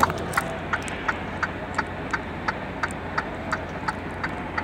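Truck cab's indicator flasher ticking steadily, about three clicks a second, over the low steady hum of the idling truck engine.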